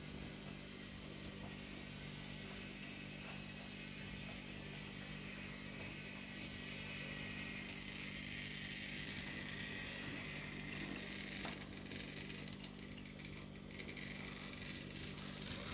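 Toy train's small electric motor running, a steady low hum under a higher whirr that grows stronger past the middle.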